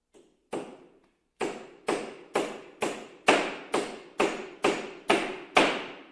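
A hammer striking repeatedly, about a dozen blows: a couple of light, hesitant taps first, then steady, harder blows about two a second.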